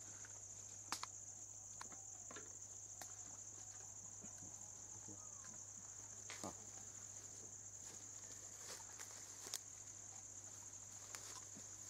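Steady high-pitched drone of forest insects, with a faint low hum underneath and a few soft clicks scattered through.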